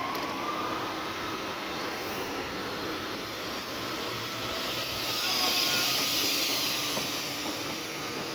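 A train running past, with a faint whine rising slowly in pitch and a rush of wheel and air noise that swells to its loudest about five to six seconds in.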